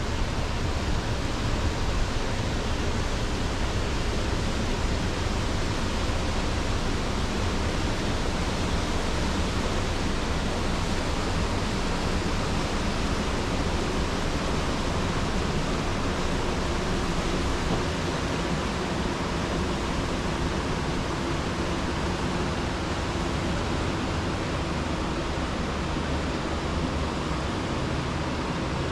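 Steady rushing noise of a small boat under way: the motor running with water and wind noise, and a faint steady hum coming in from about halfway through.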